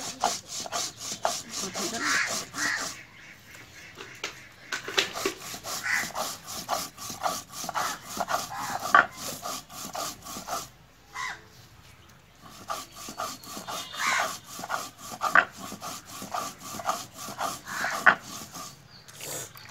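Stone grinding roller (nora) scraping back and forth over a flat stone slab (shil) in quick, even strokes, grinding ginger, garlic and cumin into paste.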